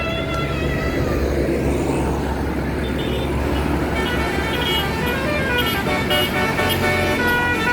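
Indonesian bus 'telolet basuri' multi-tone horn playing a tune of short stepping notes, sparse at first and busier from about four seconds in, over the low rumble of a bus engine.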